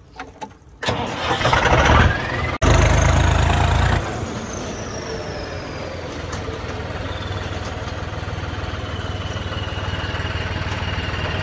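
A vehicle engine starting: a loud rising whine for about a second and a half, then a heavy low-pitched burst as it catches. It then settles into steady running, with a faint high whine slowly dropping in pitch.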